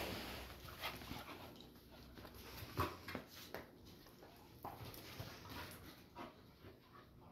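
Two puppies play-wrestling, with short, scattered dog sounds and scuffling at irregular moments; the loudest comes a little under three seconds in.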